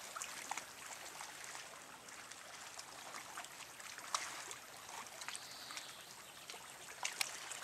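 Small waves lapping gently at a pebble shoreline: a steady trickling wash of sea water with scattered light clicks and splashes among the stones.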